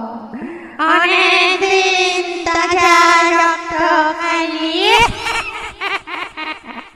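Ghostly wailing voice effect: an eerie, wavering sung tone that holds for a few seconds, glides up in pitch about five seconds in, then breaks into rapid stuttering clicks.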